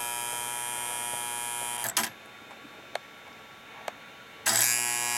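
Lionel No. 455 oil derrick and pumper accessory buzzing with a steady electric hum as it is powered. It cuts off with a click about two seconds in, then switches back on with a click near the end.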